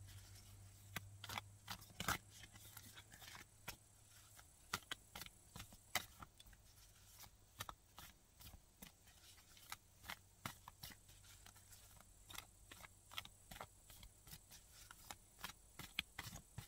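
Tarot cards being shuffled by hand: a faint, irregular patter of small clicks as the cards slide and knock against each other.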